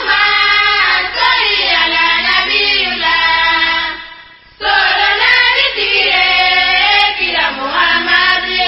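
Voices singing a choir-like chant in two long phrases, with a short break about four seconds in.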